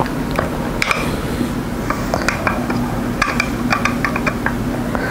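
Light metallic clicks and taps of a small screwdriver working the set screws on a variac knob, then the screwdriver being laid down on the table, over a faint steady hum.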